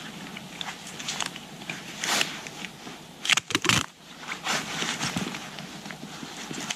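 Nylon backpack fabric and webbing straps rustling and crackling as they are handled and pulled, in irregular scrapes with a louder cluster about three and a half seconds in.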